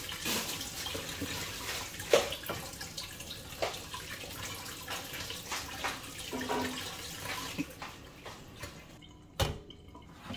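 Water running and splashing in a sink, with irregular splashes, dying away about eight or nine seconds in. Near the end comes a single thump.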